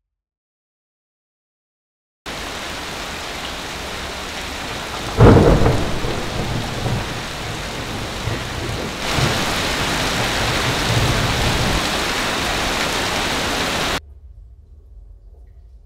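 Rain falling steadily, with one loud clap of thunder about five seconds in that rumbles away. The rain grows heavier and then cuts off suddenly near the end.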